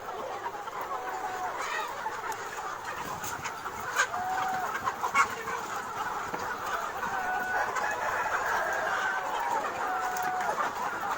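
A flock of free-range chickens clucking and calling, many birds at once in a steady overlapping chatter, with a couple of sharp clicks about four and five seconds in.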